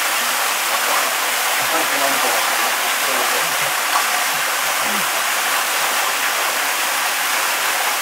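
Ten-metre waterfall pouring down a rock face and splashing into the pool below: a steady rush of water noise that does not let up.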